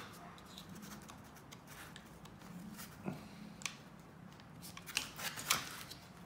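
Soft handling noise with a few small, sharp clicks, most in the second half, as an angle grinder's replacement switch and its wire terminals are handled and pressed into the grinder's rear housing.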